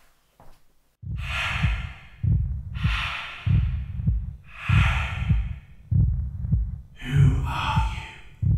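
A person breathing heavily: four long, rasping breaths about every one and a half to two seconds, the last with a slight voiced groan. They sit over a deep, steady pulsing throb.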